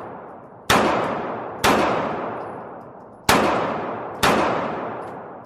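Four gunshots, in two pairs about a second apart. Each cracks sharply, then its echo rings out and dies away over about a second.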